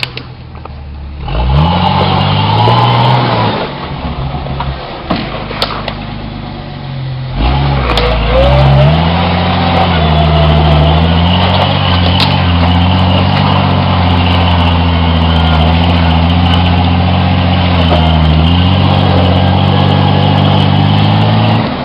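1987 Jeep Cherokee engine revved hard under load for a couple of seconds, easing off, then revved up again about seven seconds in and held high with slightly wavering pitch, typical of the tyres spinning for traction on a slick muddy climb. The sound stops suddenly at the end.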